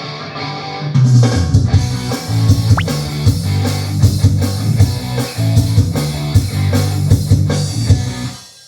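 Rock music on electric guitar, with bass and drum kit coming in about a second in and keeping a steady beat, played as a test of the bare practice room's acoustics before sound-absorbing panels go up.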